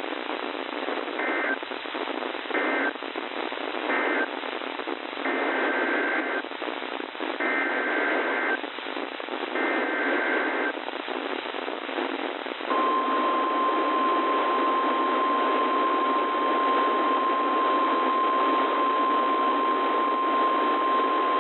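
NOAA Weather Radio alert sequence over static hiss. First come three short warbling EAS/SAME data bursts, the end-of-message code closing the previous warning. Then come three longer warbling SAME header bursts for a new alert, and a bit past halfway the steady 1050 Hz Weather Radio warning alarm tone starts and holds.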